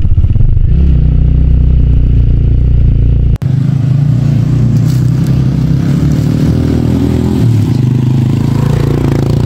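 TVS Raider 125's single-cylinder four-stroke engine running steadily at low speed while the bike rides a rough, rocky dirt track. The sound breaks off for an instant about three and a half seconds in, then an engine continues at a similar steady pace.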